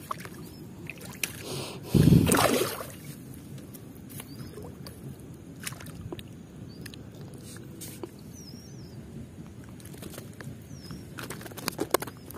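A hooked rohu thrashing at the water's surface in the shallows. It makes one loud splash about two seconds in, then lighter sloshing, with a few sharp clicks near the end as the fish is lifted from the water.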